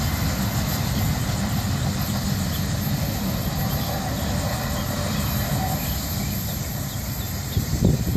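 Steady low rumble of a freight train's rear cars rolling away down the track.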